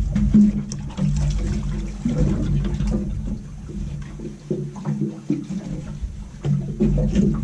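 Water sloshing and slapping against a small aluminium boat's hull, with irregular knocks over a steady low rumble of wind.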